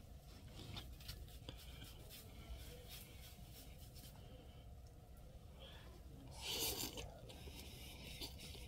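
Someone eating cup noodles with a plastic fork: faint small clicks and scrapes of the fork in the cup and mouth noises, with one louder slurp of noodles about six and a half seconds in.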